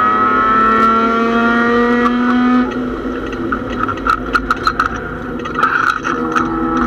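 Mazda MX6 race car's engine heard from inside the stripped cockpit, pulling hard with its pitch climbing steadily for about two and a half seconds, then suddenly dropping back as the driver comes off the throttle, with clicks and knocks from the car. Near the end the engine pulls again at a lower pitch.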